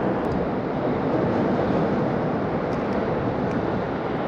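Steady rumble of traffic on the highway bridge overhead.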